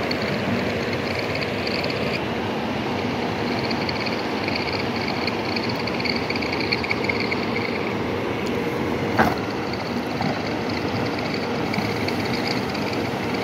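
Steady mechanical noise of ball mills running, with a wavering high hiss over it. A single sharp knock comes about nine seconds in.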